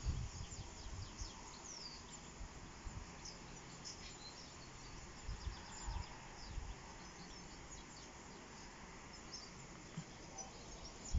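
Faint bird calls, short chirps and high gliding notes, over quiet outdoor ambience. A few brief low gusts of wind buffet the microphone, mainly near the start and about halfway through.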